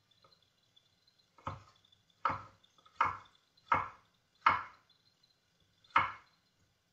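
Kitchen knife chopping carrots into sticks on a wooden cutting board: six separate strokes, about one every three-quarters of a second, with a longer pause before the last.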